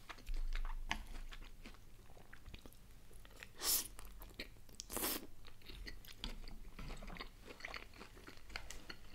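A person chewing a steamed dumpling, with small clicky mouth sounds throughout. Two louder short rushes of noise come about three and a half and five seconds in.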